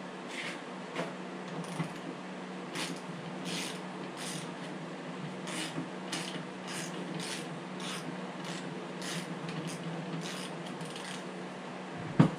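Short rasping scrapes at an irregular pace of about one or two a second, as a spark plug wrench is worked by hand to thread the spark plug back into a Stihl MS 250 chainsaw. A steady low hum runs underneath, and one sharp knock comes near the end.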